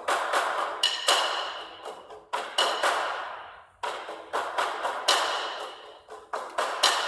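Background music: a percussive track of sharp struck hits in a repeating rhythm, each ringing out.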